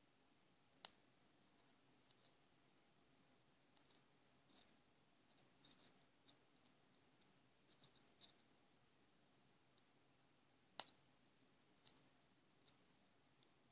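Carbon rods with 12 V across them touched together, arcing: scattered short crackles and sharp snaps, in loose clusters, with two louder snaps, one about a second in and one near eleven seconds.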